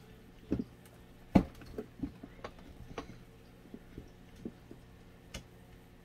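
Hands working the plastic housing of a small box fan, pressing the motor's wire into its molded wire holders: a run of irregular light clicks and taps, the loudest about a second and a half in.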